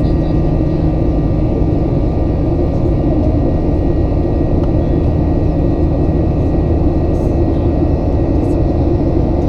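Steady cabin drone of a Boeing 737-900 climbing after takeoff: its CFM56-7B turbofan engines and the rushing airflow, heard from inside the cabin, with a few faint steady tones above the low roar.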